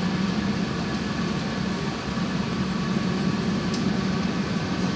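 Steady aircraft cabin noise inside an Airbus A350: an even rushing hum from the engines and air system, with a low drone running under it.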